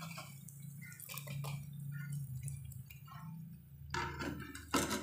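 Hot frying oil sizzling and crackling as fried samosas are lifted out with a wire skimmer, then two sharp knocks of the skimmer near the end.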